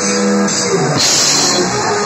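Rock band playing live: drum kit, electric bass and guitars, loud and steady.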